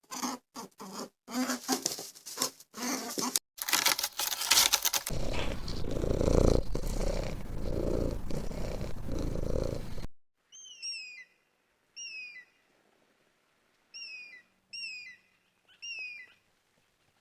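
Animal calls: a run of short calls, then a loud, rough stretch with a slow regular pulse that cuts off abruptly. After that comes a series of short, high, falling chirps, mostly in pairs.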